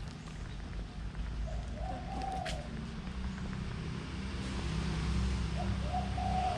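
Outdoor ambience: a steady low rumble that swells toward the end, with a bird cooing twice.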